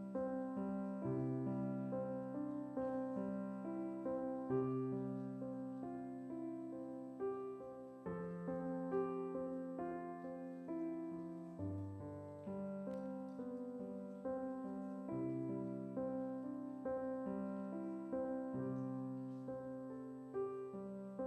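Piano playing slow, soft sustained chords over a held bass that changes every few seconds, with a gentle melody on top and no singing.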